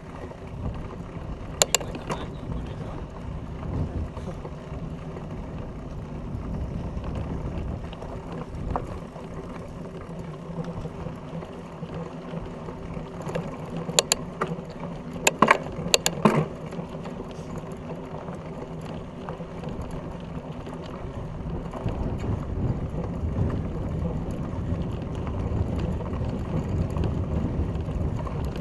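Fat bike riding a dirt track: wide knobby tyres rolling over dirt and small stones with a steady rumble and drivetrain rattle. A few sharp clacks stand out as the bike jolts over bumps, loudest in a cluster about halfway through.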